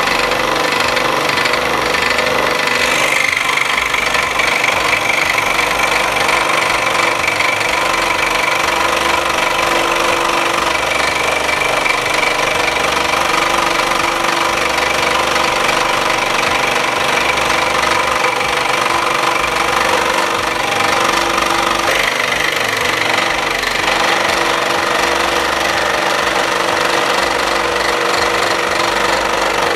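SIP 16-inch parallel-arm scroll saw running steadily, its 90-watt motor driving the blade up and down as it cuts through a thick block of wood.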